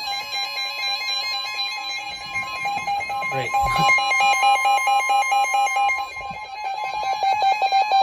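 NOAA Weather Radio 1050 Hz warning alarm tone, a steady high tone, sounding together with a weather radio's rapid pulsing alert beep. It signals an incoming tornado warning.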